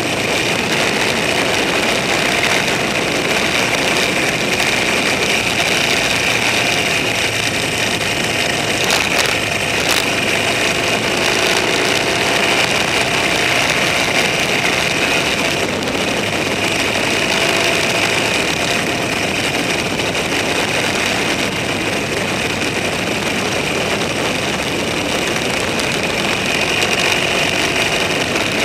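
A vehicle's engine running at a steady cruise during a ride, an even drone whose pitch wanders only slightly, with a couple of brief clicks about nine seconds in.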